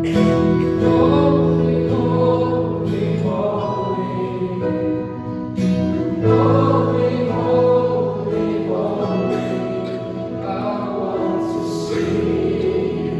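Live church worship band with several singers: voices singing a praise song together over strummed acoustic guitar and band accompaniment.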